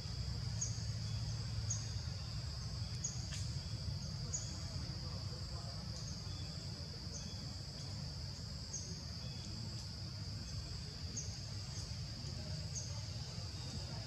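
Outdoor ambience: a steady high-pitched insect drone, with a short high chirp repeating about once a second over a low rumble.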